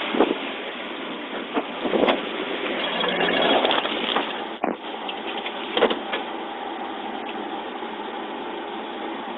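Steady roadside noise from a traffic stop, heard through a police recording microphone: a vehicle running, with a slow swell of louder noise around three to four seconds in, and a few short knocks scattered through.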